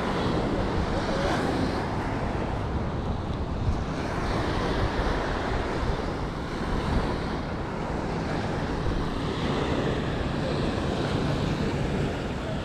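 Wind blowing over the microphone and small waves washing on a sandy beach: a steady rushing noise with a low rumble, swelling and easing every few seconds.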